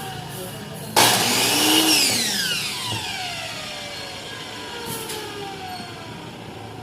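Miter saw motor switched on about a second in: a loud whine that rises briefly, then falls steadily over several seconds as the freshly mounted blade coasts down.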